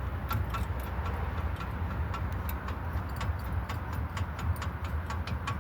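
Rapid clicking from a worn outer tie rod end on a 2003 GMC Envoy as the steering linkage is rocked back and forth by hand, about four or five clicks a second and getting quicker toward the end. The play in the joint is the sign of a worn-out outer tie rod, over a steady low rumble.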